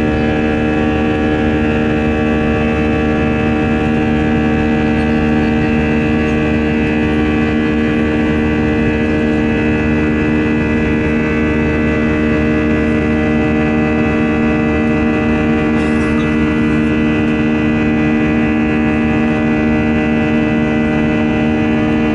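CFM56 turbofan engines of an Airbus A319 running at climb thrust, heard inside the cabin behind the wing: a loud, steady engine drone with several held tones over a rushing noise.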